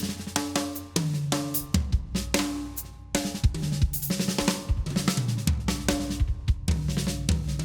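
Acoustic drum kit being played in a busy groove: kick, snare, cymbals and ringing toms struck several times a second.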